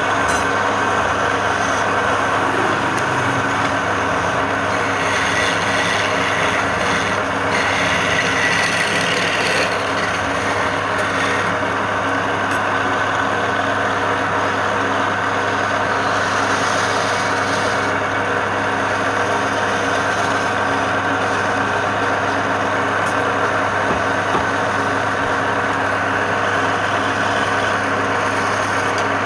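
Wood lathe running with a steady motor hum while a turning tool cuts into the spinning wood, giving a continuous scraping hiss that grows a little stronger for a few seconds early in the stretch.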